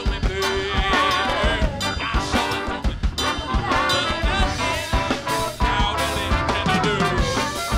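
Live funk band playing an up-tempo, ska-like groove: electric guitar, bass and drum kit under a trombone and trumpet horn section.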